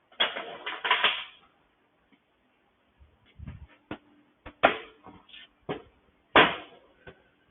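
Tools and small engine parts being handled and set down on a workbench: a short clatter, then a dull thump and a few separate knocks and clicks.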